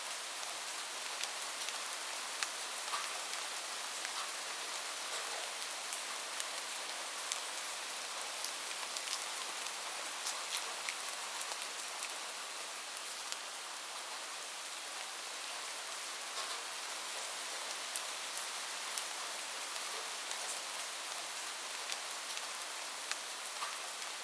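Steady rain, a continuous hiss with many individual drops ticking on a surface.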